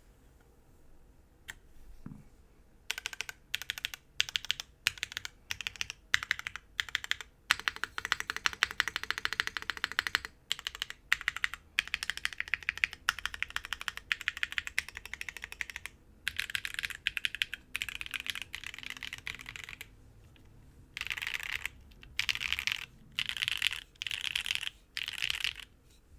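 Typing on a mechanical keyboard, a Geonworks F1-8X v2 with factory-lubed and filmed Gateron Onyx switches on an aluminium plate under GMK ABS keycaps. The keys come in quick bursts of rapid keystrokes, with one longer unbroken run and a short pause before a few final bursts.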